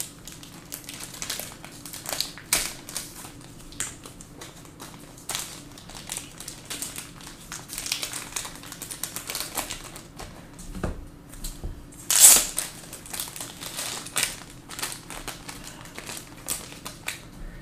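Trading cards being handled and sorted: crinkling and rustling with scattered light clicks and taps, and one louder rustle about twelve seconds in.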